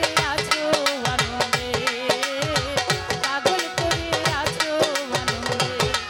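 Live Bengali folk-song accompaniment: a tabla keeping a steady, quick rhythm, its bass drum strokes sliding down in pitch, under a sustained, wavering melody.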